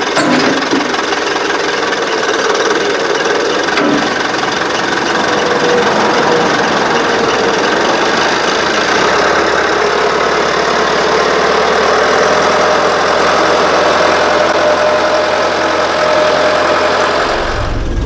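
Diesel engine of an old CAT 426 backhoe running loudly and steadily under load as the loader's hydraulics lift a 3,700-pound concrete block on a chain.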